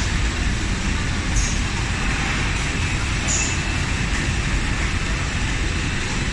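High-speed flow-wrap packing line running: a steady machine drone, with a short high hiss twice.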